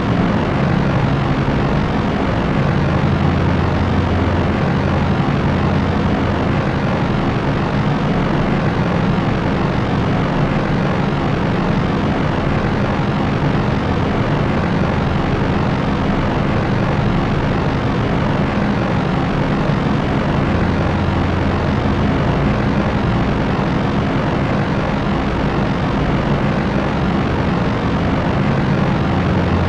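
Propellers of a propeller airplane droning steadily: a constant low hum under a broad, even rushing noise, with no change in pitch or level.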